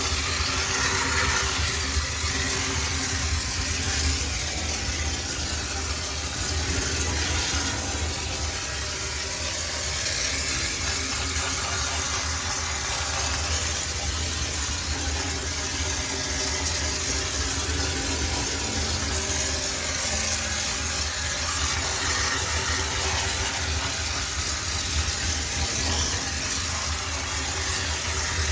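High-pressure steam cleaner running steadily: a continuous hiss of steam over a low machine hum.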